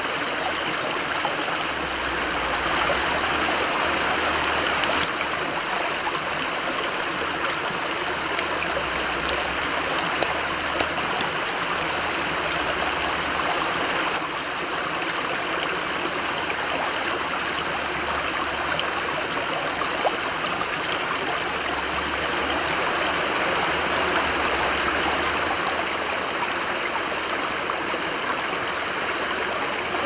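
Shallow creek flowing over stones, a steady rush of running water.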